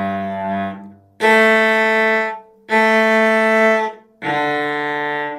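Cello bowed with heavy, forte strokes for a strong, full tone. A held note fades out in the first second, then three loud separate bowed notes follow, each about a second long with short breaks between.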